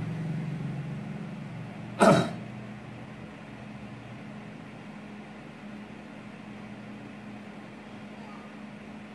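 A person gives a single short cough, clearing the throat, about two seconds in, over a steady low hum.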